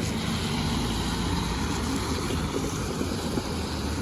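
Amtrak Texas Eagle passenger train rolling past: a steady, even rumble and rush of wheels on rail, with no horn sounding.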